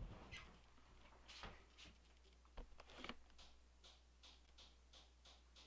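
Near silence: faint room tone with a steady low hum and a few faint, scattered clicks and taps.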